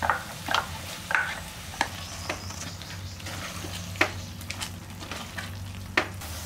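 A metal spoon scrapes ground masala paste out of a mixer jar into a pressure cooker, then a ladle stirs the thick masala, with soft sizzling and irregular sharp clinks of metal on the pot.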